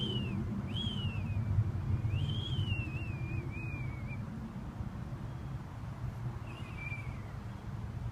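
A steady low rumble with a few high, thin whistles that rise then fall: two short ones at the start, a longer wavering one from about two to four seconds in, and a last short one near the end.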